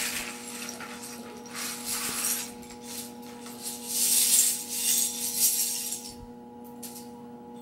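Rustling of a bag being opened and handled as a booklet and a bag of Lego bricks are pulled out, with loose plastic bricks clinking, loudest about four to five and a half seconds in. A faint steady hum runs underneath.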